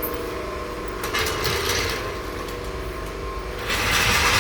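Auto repair shop noise: a steady low hum, with a stretch of scraping or hissing noise about a second in and a louder one near the end.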